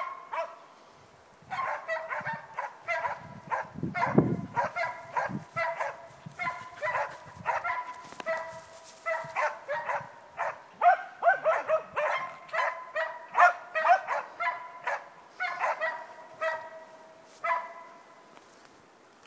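Hunting dog barking at a standing moose: a long run of short, sharp barks, about two a second, starting a second or so in and stopping near the end. This is the steady barking of a dog holding the moose at bay.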